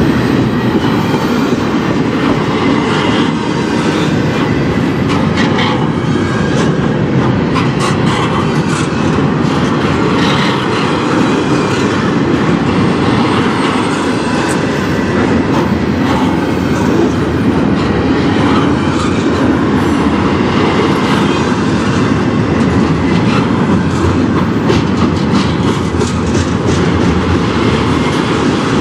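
Double-stack container well cars of a CN intermodal freight train rolling past close by. It is a steady, loud rumble with scattered sharp clicks from the wheels on the rails.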